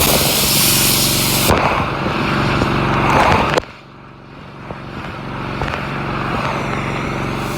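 Gas pressure washer running, its engine hum under the hiss of the spray. The spray hiss thins out about a second and a half in. About three and a half seconds in the whole sound drops sharply, then slowly builds back.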